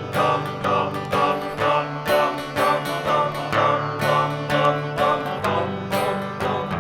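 Instrumental rock music from a vinyl LP: a plucked, strummed guitar plays a steady rhythm of notes over a sustained low bass note, with no singing.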